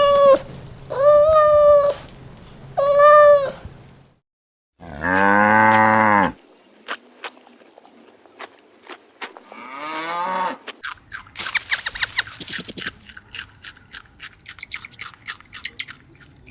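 A string of animal calls from separate clips. First come three short, high calls. After a brief gap there is one deeper, longer call. A shorter falling call follows, then scattered clicks and rustling.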